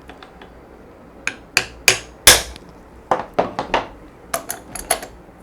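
Small hammer tapping the metal shuttle driver of a sewing machine: about a dozen sharp metallic taps in three quick runs, the loudest a little over two seconds in. The driver is being knocked slightly outward to open a gap between it and the shuttle, the cure for thread tangling and breaking under the cloth.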